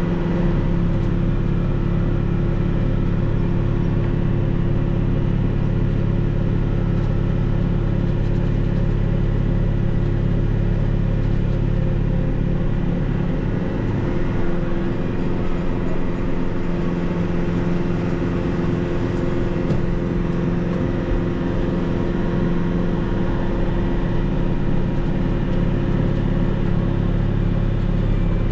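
Kubota MX6000 tractor's diesel engine running at a steady pitch and level.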